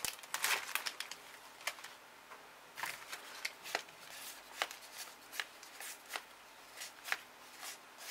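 World of Warcraft trading cards being flicked through one at a time, each card slid off the stack with a faint, short snap, about two a second.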